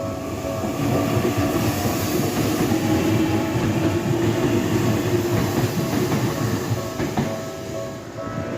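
Tokyu Ikegami Line train passing over a level crossing, its wheels rumbling and clattering on the rails. The crossing's electronic warning bell rings on in a steady pulsing pattern beneath it and comes through clearly again near the end as the train fades.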